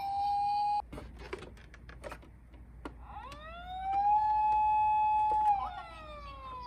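Toy ambulance's electronic siren. A steady tone cuts off suddenly within the first second, followed by a few small plastic clicks and taps. Then the siren wails again, rising, holding steady for about two seconds and slowly falling.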